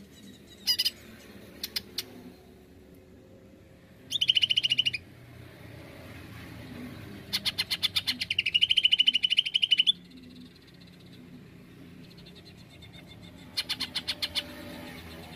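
Male greater green leafbird (cucak ijo) calling in bursts of fast repeated notes. A short burst comes about four seconds in, a longer one of nearly three seconds in the middle, and another near the end, with a brief note and a couple of single clicks early on.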